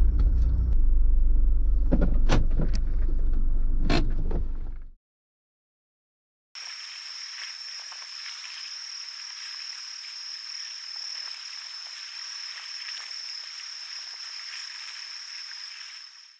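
A low rumble with a few sharp knocks that cuts off about five seconds in. After a short silence comes a steady chorus of insects chirring, with one high, even ringing tone.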